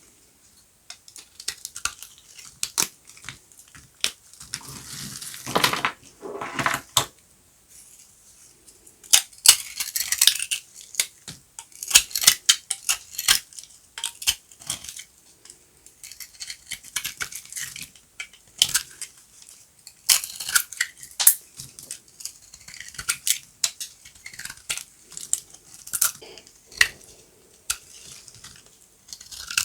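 Knife cutting through dry, crunchy soap: a run of sharp, crisp cracks and crunches, with a few longer scraping stretches as the blade drags through.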